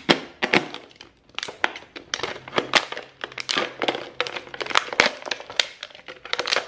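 Thin plastic water bottle crackling and crinkling as it is sawn in half with a knife: a quick, irregular run of sharp cracks.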